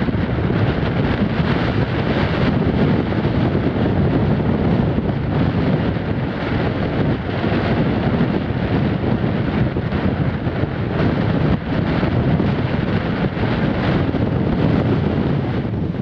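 Force-6 wind buffeting the microphone: a loud, rough rumble that swells and eases, with the hiss of breaking surf mixed in.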